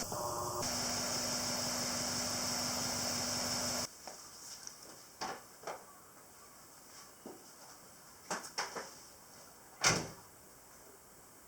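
Steady mechanical running noise with a hiss and a low hum, likely the EJ207 engine, cuts off suddenly about four seconds in. A few scattered clicks and knocks follow in the quiet, the loudest a little before the end.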